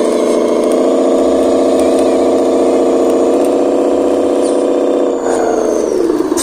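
Engine-like drone of a radio-controlled model dump truck grinding up a muddy slope under a load of mud. The pitch holds steady, with a faint high whine above it, then falls away about five seconds in.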